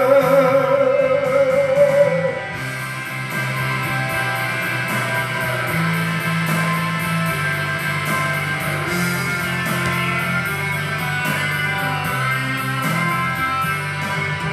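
Man's held sung note through a microphone ends about two seconds in, leaving a guitar-led rock backing track playing an instrumental break with a steady beat.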